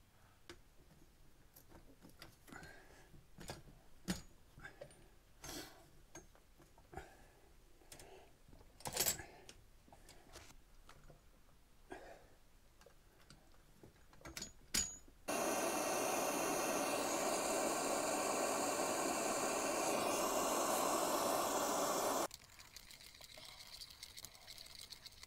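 Copper pipe fittings and hand tools being handled: scattered metallic clicks and clinks, one sharper knock about nine seconds in. Then a loud, steady rushing hiss starts suddenly and cuts off abruptly about seven seconds later.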